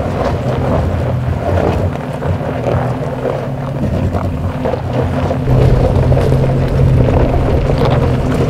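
2020 Toyota 4Runner TRD Pro's 4.0-litre V6 running with a low, steady hum as the SUV creeps along a steep gravel track. The engine grows louder about five and a half seconds in.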